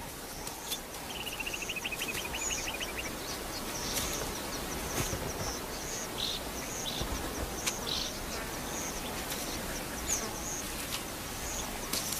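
Natural outdoor ambience: small birds chirping again and again over a steady background hiss, with a rapid, evenly pulsed trill from about one to three seconds in and a few sharp clicks.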